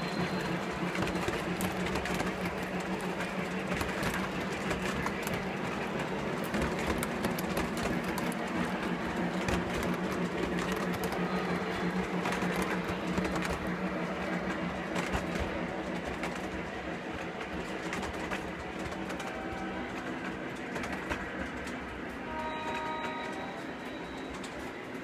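Model train of Pennsylvania Railroad passenger cars rolling past on layout track. Its wheels make a rapid clicking over the rail with a steady hum, fading as the last cars go by.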